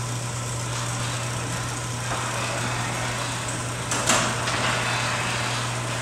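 Chain-driven garage door opener running steadily with a low hum as the sectional door travels along its tracks. A sharp clack about four seconds in.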